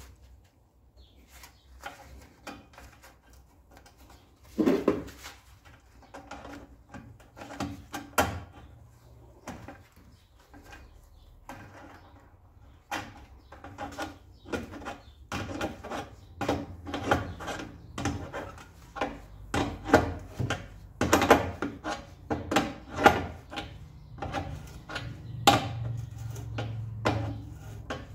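Hand work on an air compressor's metal air tube and its threaded fitting: irregular clicks, knocks and scraping as the tube and fitting are worked into place, growing busier from about halfway through.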